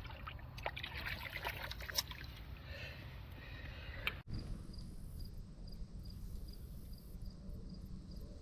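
Water splashing and trickling as a caught carp is released back into a shallow stream. After an abrupt cut about four seconds in, only a steady low rumble of flowing water remains.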